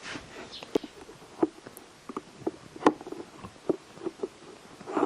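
Irregular clicks, knocks and rustles of a new air filter being pushed and worked into a plastic airbox housing, about a dozen short knocks spread unevenly.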